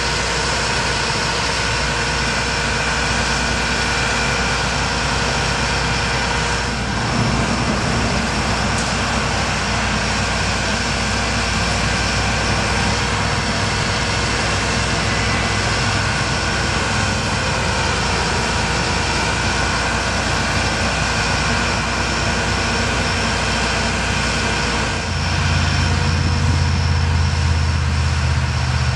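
Bucket truck's diesel engine running with the hydraulic system powering the Altec aerial boom as it is raised and swung out: a steady drone with several held whining tones. A deeper, louder hum comes in near the end.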